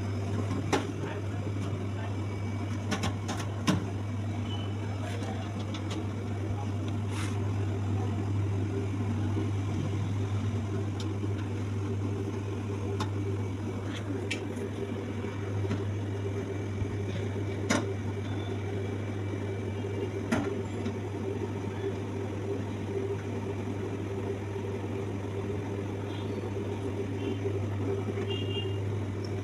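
Newly fitted refrigerator compressor running with a steady low hum, with a few sharp clicks and taps now and then.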